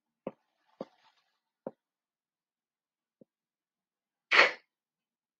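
Dry-erase marker tapping on a whiteboard, three sharp taps in the first two seconds and a fainter one later, with a faint scratch of writing around the second tap. About four and a half seconds in comes a short breathy noise, louder than the taps.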